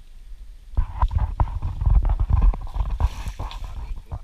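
Branches and dry palm fronds cracking and rustling as they are pushed aside from the bow of a boat forced through overhanging trees. A dense run of irregular snaps with low thumps starts about a second in and eases off near the end.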